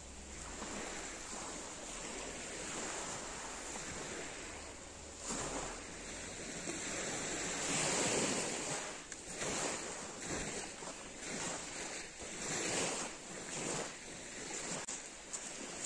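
Small waves breaking and washing up a pebble beach, swelling to their loudest about halfway through.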